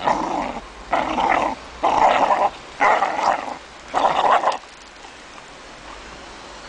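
A dog growling as it tugs on a springpole rope: five growls about a second apart, then it falls quieter for the last two seconds.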